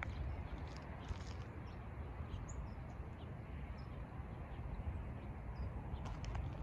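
Outdoor ambience: a steady, uneven low rumbling noise with a few faint, short, high bird chirps.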